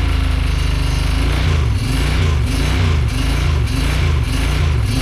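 2008 Kawasaki Brute Force 750's fuel-injected V-twin engine running just after an engine rebuild, its pitch wavering up and down about twice a second from about a second and a half in.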